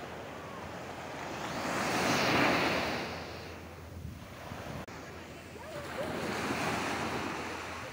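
Small waves breaking and washing up a sandy shore, swelling twice a few seconds apart.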